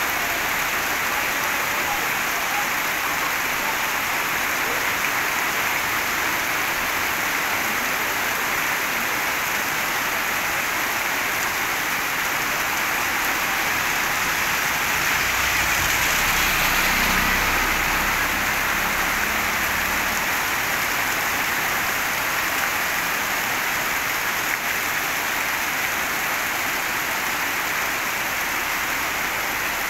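Heavy rain pouring onto a paved street, a steady dense hiss. About halfway through, a vehicle drives past through the rain, its low rumble swelling and fading over a few seconds.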